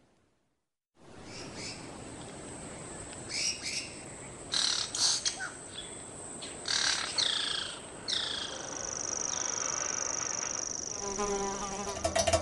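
Countryside ambience after about a second of silence, with birds chirping in short, quick downward-sliding calls. A high steady trill joins about eight seconds in, and a wavering buzz starts near the end.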